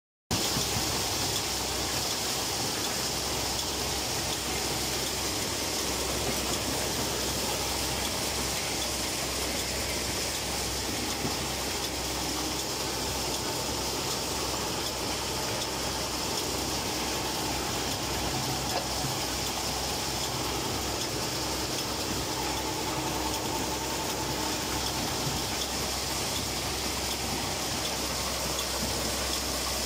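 Tractor engine running steadily with the continuous noise of a tractor-mounted dry bean harvester working through bean plants.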